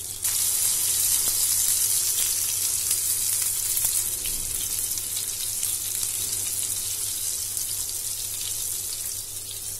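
Seer fish steaks shallow-frying in hot oil in a pan as they are turned over, giving a steady sizzle. It swells just after the start and eases a little toward the end.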